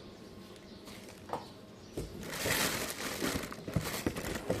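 Plastic packaging rustling and crinkling as parts are handled, with a few light clicks and knocks. It is mostly quiet for the first two seconds, and the rustling starts about two seconds in.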